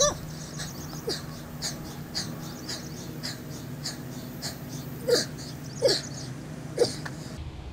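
A man panting hard through a set of push-ups, with quick, regular breaths about two a second. Near the end come three short, falling groans of strain, the loudest sounds here.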